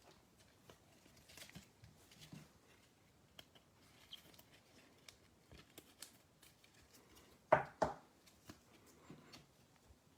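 Faint handling of trading cards on a table: scattered small clicks and rustles, with two sharp knocks close together about three quarters of the way through.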